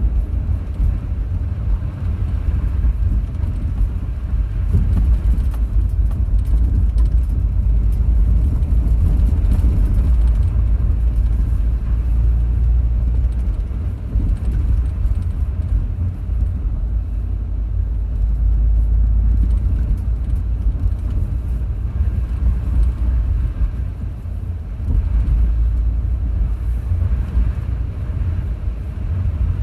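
Car driving, a steady low rumble of engine and tyres that swells and eases a little along the way.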